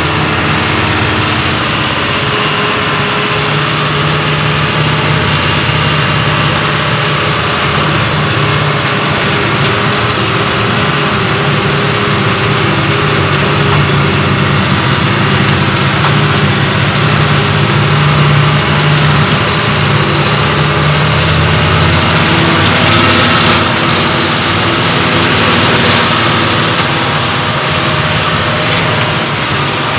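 Truck engine running steadily under way, heard from inside the cab along with road and wind noise.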